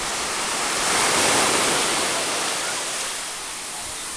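Small sea waves breaking and washing up a sandy beach, the surf swelling louder about a second in and then easing off.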